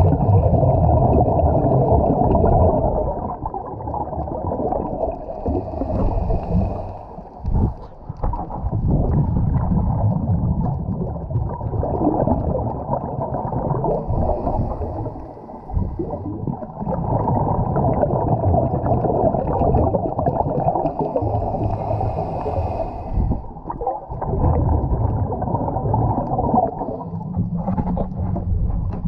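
Muffled underwater sound picked up by a diver's camera housing: a steady dull water noise, with the scuba diver's exhaled bubbles gurgling roughly every eight seconds.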